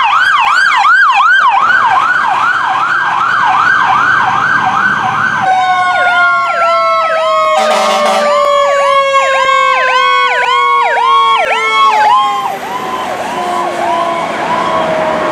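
An electronic siren warbling fast, then a fire ladder truck's sirens: an electronic yelp together with a steady siren tone that slides slowly down in pitch. A short air-horn blast comes about halfway through, and the yelp drops in pitch as the truck passes close near the end.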